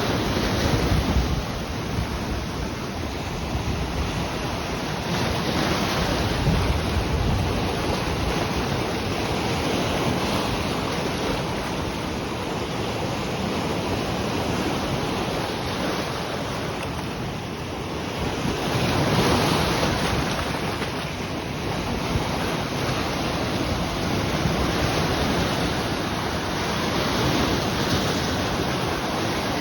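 Sea waves washing onto the shore, swelling and easing every several seconds, loudest about two-thirds of the way through. Wind buffets the microphone, adding a low rumble.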